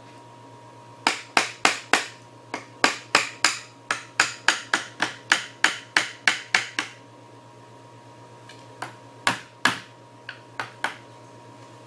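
Hammer blows on a wooden chair joint: a quick run of about twenty sharp taps, three or four a second, then a pause and a few more scattered taps. He is trying to knock apart a stubborn joint that won't come free.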